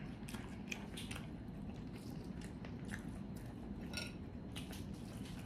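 Close-miked eating sounds: soft, wet chewing and scattered mouth clicks of someone chewing prawn meat.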